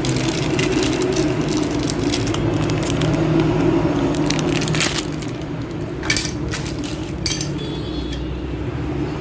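Crackling and clicking handling noises over a steady low hum, busiest in the first half, then a few separate clicks.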